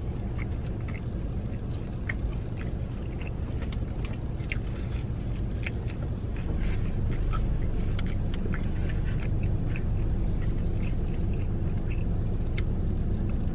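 Close-miked chewing of crispy fried chicken, with many small crunchy clicks and wet mouth sounds, over a steady low rumble in the car's cabin.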